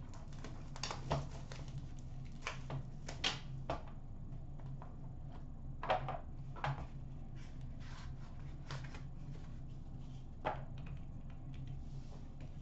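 Hockey card boxes being handled and opened: scattered light knocks, taps and scrapes as a box lid comes off and boxes are set down, about ten in all at irregular gaps, over a faint steady hum.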